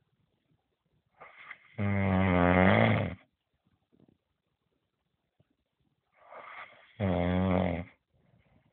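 A person snoring loud: two long rasping snores about five seconds apart, each with a softer breathy lead-in.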